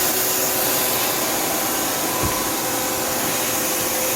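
Tsugami S206 CNC Swiss lathe running with a steady, even whir, while its axes are jogged. A faint steady whine sets in about half a second in, and there is one brief low thump about two seconds in.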